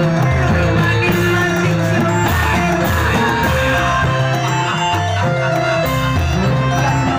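Loud accompanying music for a live Reog show, with held melody notes over a bass line that moves from note to note.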